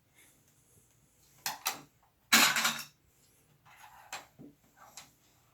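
Plastic Lego pieces clicking and clattering as they are handled and sorted through, with a couple of sharp clicks and then a louder half-second rattle of pieces about two and a half seconds in.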